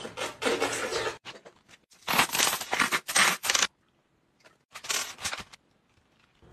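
Copper pennies clinking and rattling in a plastic cup, in three short bursts with quiet gaps between.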